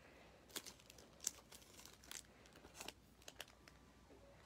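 Faint crinkling and scattered light clicks of plastic stamp packages being handled and turned over.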